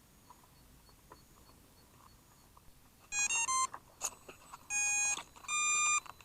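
Electronic beeps from a smart RC plane's control system: a quick run of stepping tones about three seconds in, a click, then two long steady beeps near the end.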